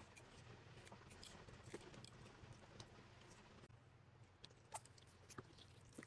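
Faint handling of slime balls and slime: scattered soft clicks and sticky crackles, a few at a time, over a low steady room hum.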